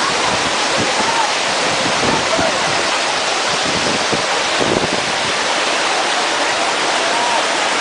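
Peguche waterfall crashing down: a loud, steady, unbroken rush of falling water.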